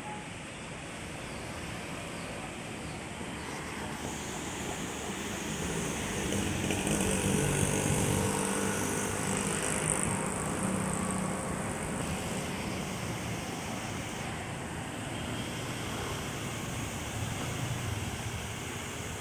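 Steady city road traffic with a low engine hum, growing louder as a vehicle passes close about six to ten seconds in, then settling back.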